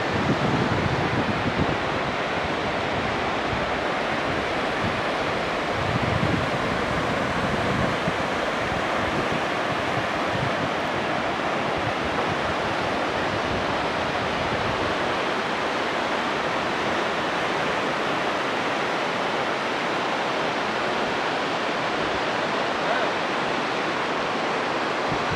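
Steady rush of a fast mountain river, the Kameng, flowing over rocks below a suspension bridge. A few low gusts of wind buffet the microphone in the first eight seconds.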